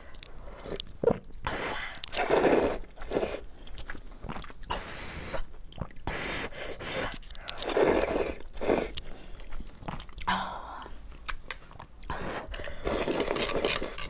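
A person slurping luosifen rice noodles and chewing, heard as several long slurps of about a second each with wet mouth clicks and chewing between them.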